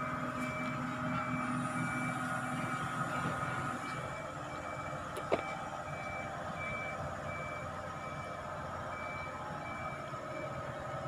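Truck-mounted crane's diesel engine running steadily, with its warning alarm beeping at an even pace throughout. A single sharp clank about five seconds in.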